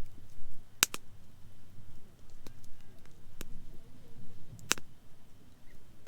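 Wood campfire burning and crackling, with a sharp pop about a second in and another loud pop near the end, and a few smaller snaps between.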